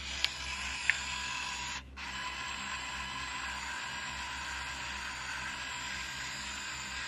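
Minolta Vectis 300 APS compact camera's film-transport motor whirring steadily as it draws in the newly loaded APS film cartridge. There are two small clicks in the first second and a brief break about two seconds in.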